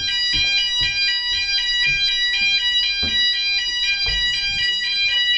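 Building fire alarm sounding: a loud, high-pitched electronic tone pulsing rapidly and evenly, with a few short low thumps underneath.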